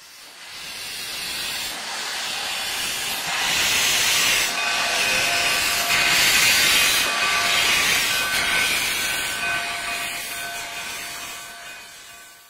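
Steam locomotive No. 489 venting steam from its cylinder drain cocks: a loud, steady hiss with a few faint steady tones in it. It fades in over the first few seconds and fades out near the end.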